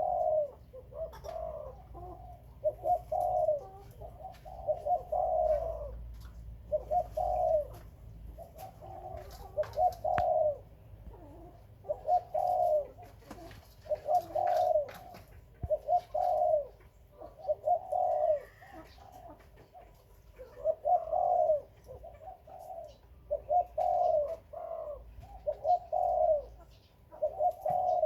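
Doves cooing, one short rolling coo phrase after another, every second or so.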